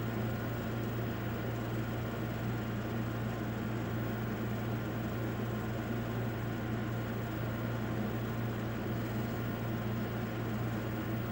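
Steady low hum over a constant hiss, with no change or distinct event: room background noise.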